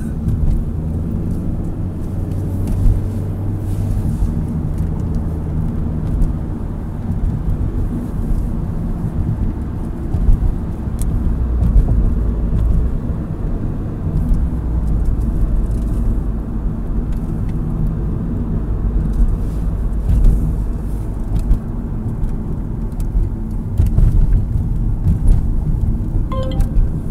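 A car driving on a road, heard from inside the cabin: a steady low rumble of engine and tyre noise.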